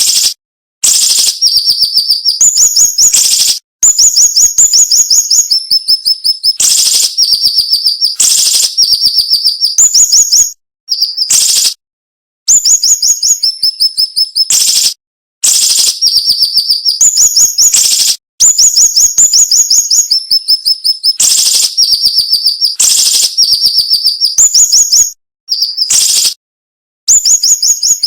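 Siri-siri bird singing sharp, high-pitched phrases of quick repeated notes, each phrase a second or two long with brief pauses between. The phrases come over and over.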